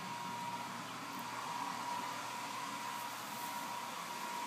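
Reef aquarium sump system running: a steady rush of flowing water and equipment noise, with a steady whine underneath.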